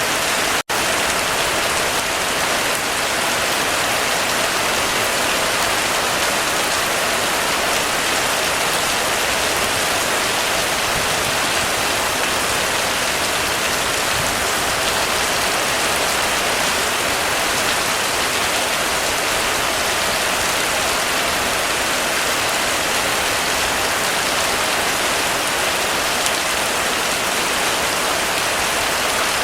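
Heavy rain falling steadily on a roof, an even dense hiss. The sound cuts out for an instant about half a second in.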